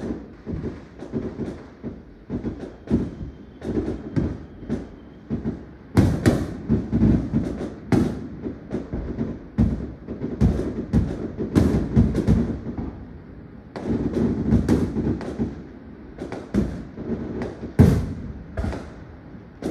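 Fireworks going off in quick succession: a dense, irregular run of bangs and crackles over a continuous rumble, busiest from about six seconds in.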